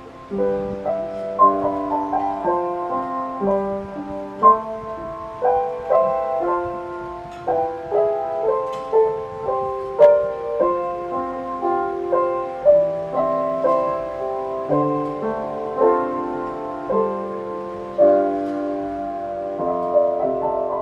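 Background film score: a piano playing a flowing melody, note after note with chords beneath.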